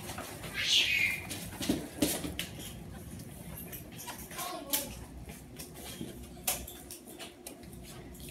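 Quiet room sound with scattered light clicks and taps, and brief faint children's voices, one near the start and another about four and a half seconds in.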